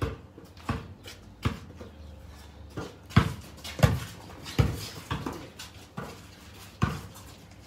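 Basketball bouncing on paved concrete as it is dribbled and played, a series of sharp thumps roughly every half to one second, the loudest in the middle.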